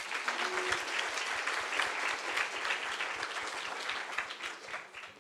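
Audience applauding at the end of a talk: a dense patter of many hands clapping that starts suddenly and fades out near the end.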